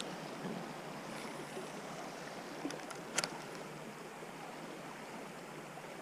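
Shallow creek water flowing in a steady hush, with a few light clicks and one sharper click about three seconds in.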